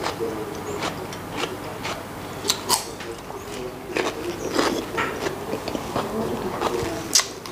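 Close-miked biting and chewing of a crisp raw white radish stick: wet crunching and mouth noises, with sharper crunches about two and a half, four and seven seconds in.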